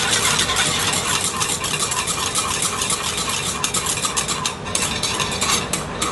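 Wire whisk stirring flour-thickened gravy in a saucepan as it is brought to a boil, a continuous rapid scraping and clicking of the tines against the pot.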